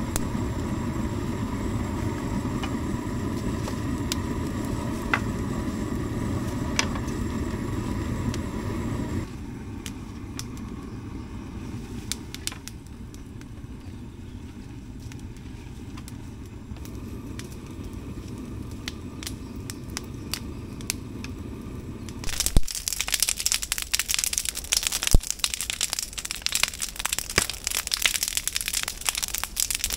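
An engine running steadily for about the first nine seconds, then a quieter stretch with scattered clicks. From about two-thirds of the way in, a burning brush pile crackles loudly with many sharp pops.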